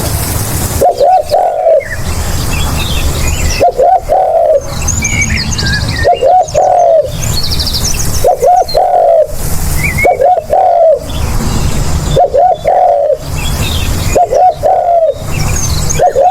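Spotted dove cooing, repeating its short phrase about every two and a half seconds. Each phrase is two or three quick notes and then a longer falling coo. Small birds chirp faintly in the background.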